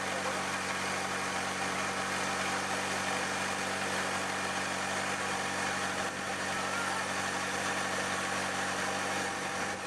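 Boat engine running steadily at an even speed, with a constant low hum and wash of noise.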